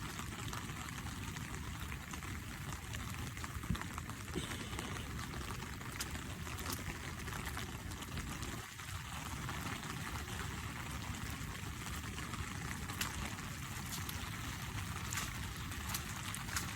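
Steady rush of rain and running, pouring water, with scattered small taps of drops.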